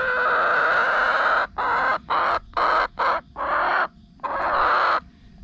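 Chicken calling loudly and harshly close by: one long squawk of about a second and a half, then a run of about six shorter squawks.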